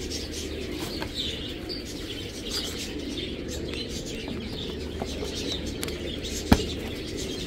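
Caged pigeons and doves cooing, mixed with scattered short chirps, over a steady low hum. A single sharp knock stands out about six and a half seconds in.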